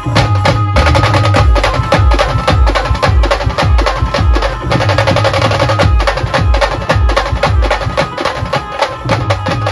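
A brass band's drum section playing a fast, dense rhythm: deep bass-drum beats under rapid, sharp stick strokes, with a high note held over the drumming.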